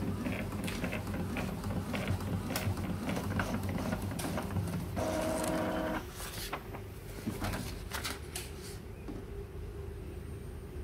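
Epson L3110 inkjet printer printing a test page: the print-head carriage running back and forth with rapid clicks and the paper feeding. A short steady motor whine about five seconds in, then quieter clicks as the page comes out.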